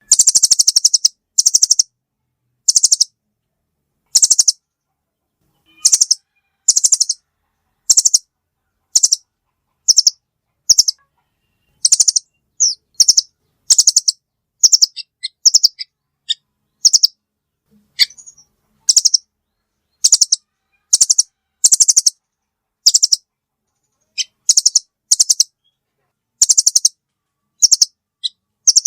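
Velvet-fronted nuthatch (rambatan paruh merah) calling: short, high-pitched trills of quick repeated notes, one burst about every second, with dead silence in between.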